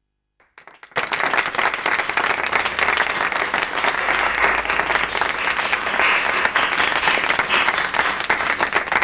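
Audience applauding, a few scattered claps and then full applause starting abruptly about a second in.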